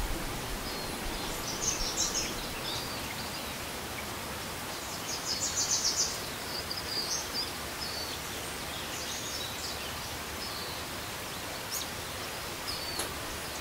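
Steady outdoor background hiss with scattered short, high-pitched chirps, including a quick run of about six pulses around five to six seconds in.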